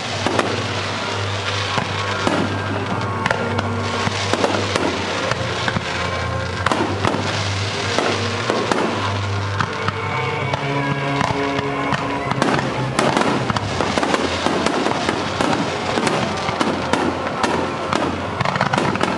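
Fireworks show: rapid crackling and repeated bangs of bursting shells, with music playing from loudspeakers underneath.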